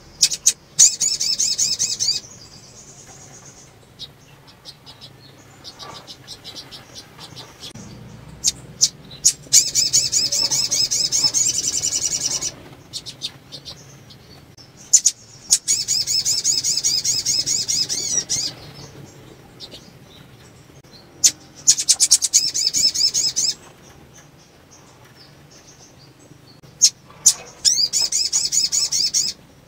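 Caged female sunbird (sogon) calling: five bursts of rapid, high-pitched trilling, each one to three seconds long, about every six seconds, with sharp single chips and soft twitters between. This is the call of a female in breeding condition, played to prompt males to sing.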